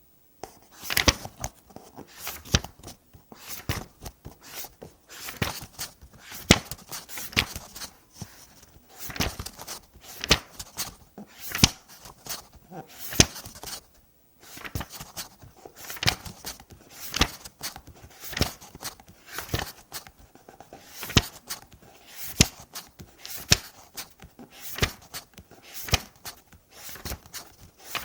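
Pages of a book being turned one after another, each flip a crisp papery rustle ending in a light snap, about one every second.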